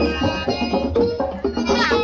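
Loud music with drums and heavy bass, played through a parade sound-system rig, with a bending melody line near the end.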